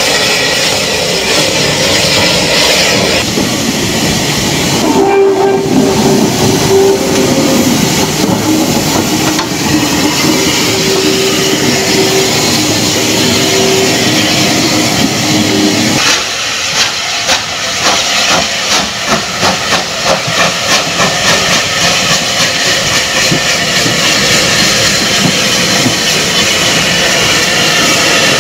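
Unrebuilt Bulleid Battle of Britain class steam locomotive hissing steam from its cylinder drain cocks as it moves, with a held tone that comes and goes through the first half. From about halfway through, steady exhaust beats at about two a second as the engine works.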